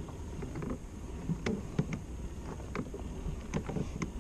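Fishing kayak under way on a creek: scattered light knocks and clicks from the boat and its fittings, at uneven spacing, over a steady low rumble.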